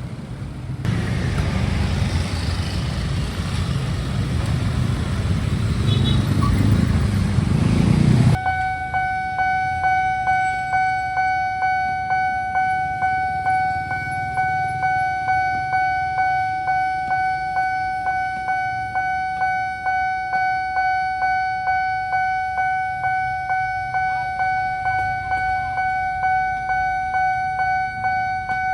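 Railway level-crossing warning alarm sounding: a steady high electronic tone pulsing evenly somewhat faster than once a second. It follows a loud rumbling noise that stops abruptly about eight seconds in.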